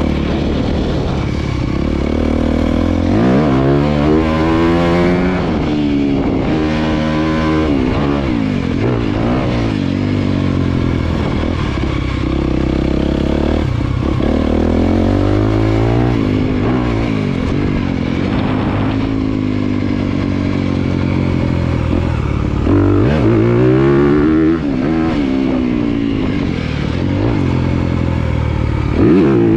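Dirt bike engine ridden hard around a motocross track, revving up and dropping back again and again as the rider accelerates, shifts and backs off for turns.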